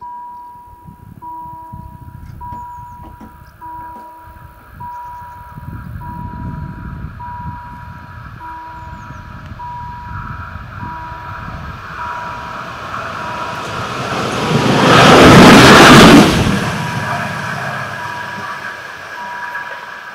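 Level-crossing warning bell ringing, one electronic ding about every second, while a VT 98 diesel railbus approaches and passes close by with a loud rush of engine and wheel noise about fifteen seconds in; the bell keeps ringing after it has gone.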